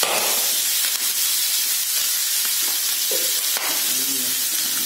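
Pork pieces sizzling steadily in hot oil in a wok, with a couple of sharp ticks as quartered red onions are dropped onto the meat.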